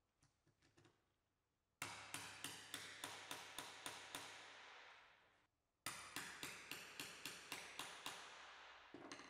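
Hammer tapping a knock-in tool to drive front connectors into a drawer front panel. There are two runs of quick, even taps, about four to five a second, with a short break between them, one run per connector.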